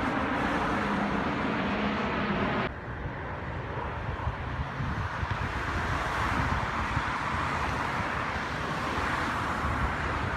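Outdoor traffic noise, a steady roar with some wind on the microphone; it changes abruptly about two and a half seconds in, as if at an edit.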